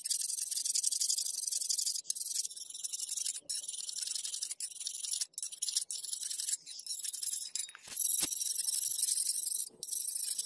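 Hand file rasping across the steel edge of a meat cleaver in repeated strokes: a high scratchy hiss with short breaks between strokes.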